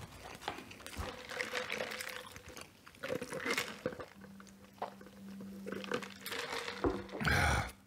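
Close-up wet chewing and lip-smacking of a man eating a saucy Double Big Mac burger, with a louder throaty sound near the end.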